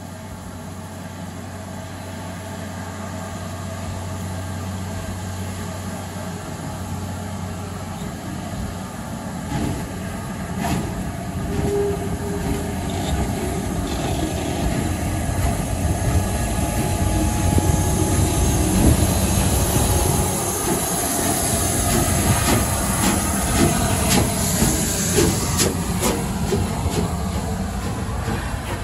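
Steam locomotive and its coaches moving slowly past at close range, with steam hissing and a rumble that grows louder as the train comes by. From about ten seconds in the wheels click and clatter over the rail joints.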